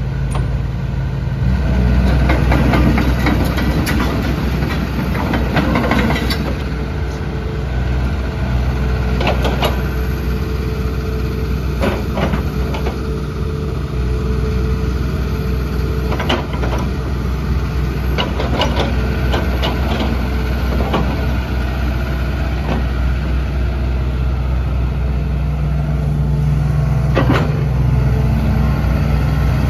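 Hitachi ZX210LC-3 excavator's diesel engine running steadily while the boom, arm and upper structure are worked, its note rising under load a couple of seconds in and again near the end. A steady whine runs through the middle, and sharp knocks sound every few seconds.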